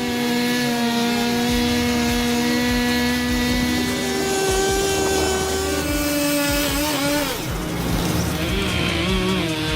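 An engine running under changing load, its pitch holding steady, then shifting in steps and gliding down about seven seconds in.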